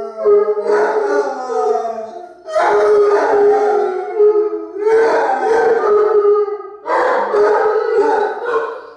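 Basset hounds and a bloodhound howling together, several voices at different pitches overlapping, in four long howls with short breaks. The howling dies away at the very end.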